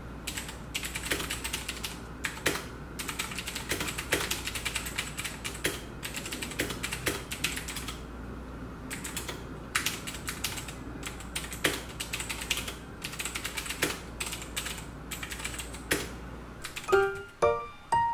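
Typing on an RK837 mechanical keyboard: a fast, uneven run of keystroke clicks with brief pauses. Near the end the typing stops and piano music begins.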